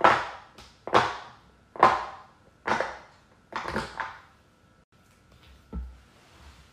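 Square silicone pop-it being popped a whole row of bubbles at a time under the fingers: five sharp pops about a second apart. Then quieter, with a soft thump near the end.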